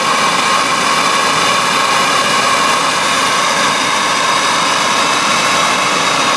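Plumbing torch flame burning steadily with a rushing hiss and a steady tone running through it, heating a metal branding-iron numeral.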